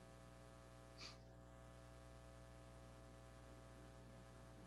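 Near silence: room tone with a steady low hum, and one brief soft hiss about a second in.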